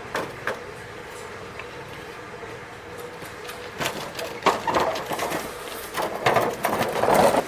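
Irregular knocks and clattering, sparse at first, then growing busy and dense in the second half.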